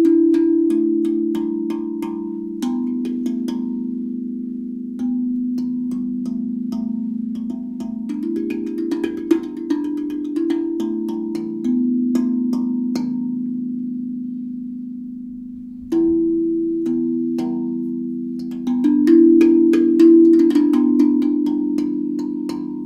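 HAPI Drum steel tongue drum in E-minor tuning played with the fingers: low notes struck one after another and left to ring, overlapping into a sustained, bell-like sound. Past the middle the ringing fades for a couple of seconds before a new run of strikes.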